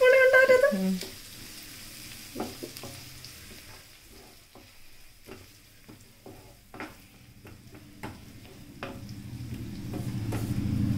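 Wooden spatula stirring and scraping onion, tomato and tomato ketchup in a nonstick frying pan, in irregular taps and scrapes, over a soft sizzle of frying. A low rumble swells near the end.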